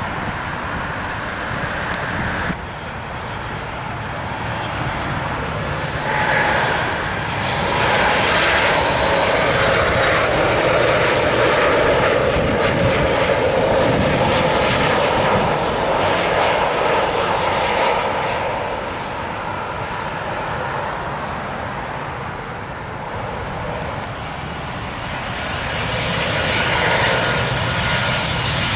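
Airliner jet engines passing close by. The roar swells about six seconds in, holds loud for around ten seconds with a thin high whine over it, fades, then starts building again near the end.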